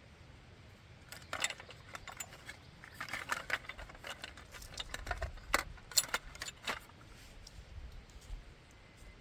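Light metallic clinking and clattering of small hard objects being handled, a run of sharp clinks from about one second in to about seven seconds in.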